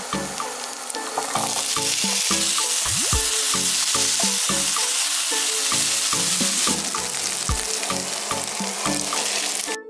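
Diced raw potatoes sizzling in hot oil in a frying pan with fried sausage pieces while being stirred with a spatula; the sizzle swells about a second in and cuts off abruptly near the end. Background music with a steady beat plays underneath.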